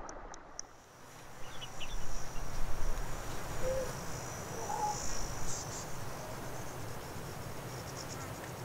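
Insects calling with a high, steady trill, broken by short rapid chirps near the start and again near the end, over a swell of background noise about two seconds in.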